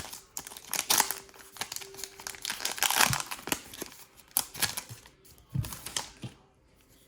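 Foil booster-pack wrapper crinkling as it is handled and the cards are slid out, a dense run of crinkles that thins out about six seconds in.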